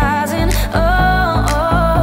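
Background music with a held melody over a steady beat.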